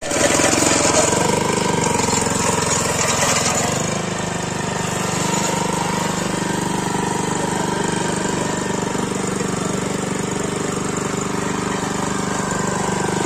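Small petrol engine of a power weeder running steadily, a little louder in the first few seconds before settling into an even run.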